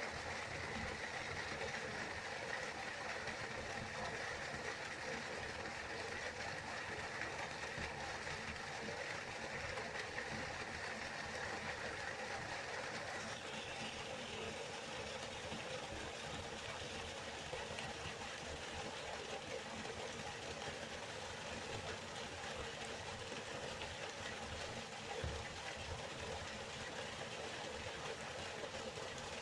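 River water rushing steadily. About halfway through, its hiss changes texture slightly.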